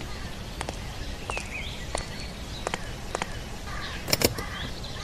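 Sharp, irregular metallic clicks from a bicycle's rear cassette and chain being handled, with a louder double click about four seconds in, over a steady low rumble of outdoor traffic.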